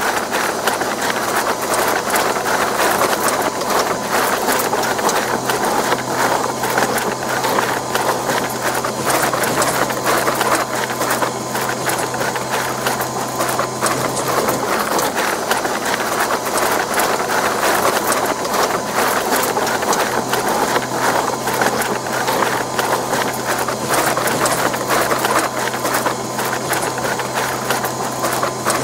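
Electric bread dough mixer running steadily: a motor hum under a continuous dense rattle of quick, irregular knocks.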